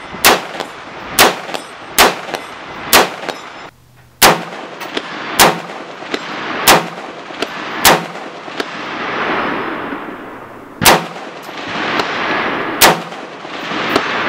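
Savage MSR 15 Recon AR-15 in .223 Wylde fired semi-automatically about ten times, at first about a shot a second, then with longer pauses. Steel targets clang when hit.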